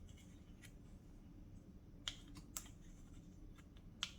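A few faint, sparse clicks and light taps of kitchen utensils and containers being handled, over quiet room tone.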